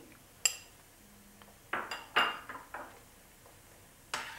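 A few light clinks and knocks of kitchen utensils and dishes, with a short ring after some: one about half a second in, a quick cluster of three or four around two seconds in, and one more near the end.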